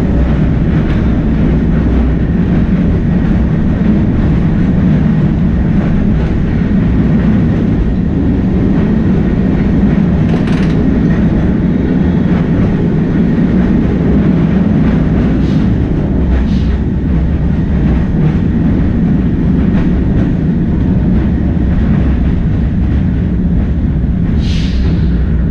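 Electric tram X1 (466) heard from its driver's cab while running along street track: a steady low rumble of its motors and wheels on the rails. A few brief higher-pitched sounds break in, the clearest about ten seconds in and near the end.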